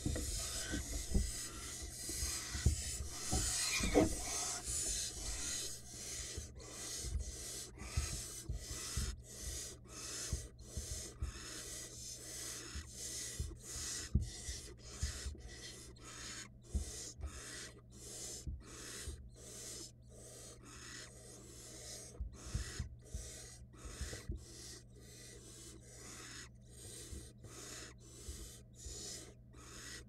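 Barn owl nestlings giving rasping, hissing begging calls over and over, about two a second, loudest in the first few seconds. Low scuffling thumps sound from the wooden nest box beneath the calls.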